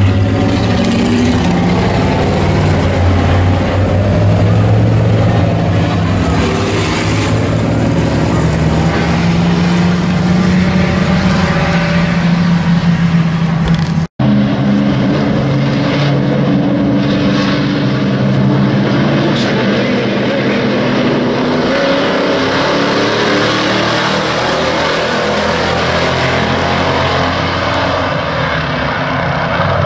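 Race pickup truck engines running at low speed, a steady engine drone. The sound cuts out for an instant about halfway through.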